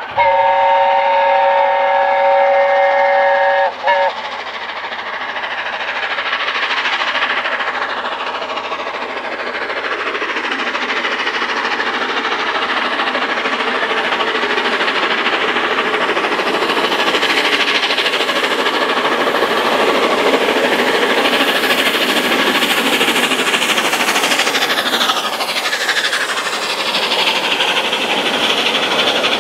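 Steam locomotive 60163 Tornado's chime whistle sounding a steady chord for about four seconds and cutting off. Then comes the steady rushing noise of the locomotive and its coaches passing as it climbs the 1-in-75 gradient.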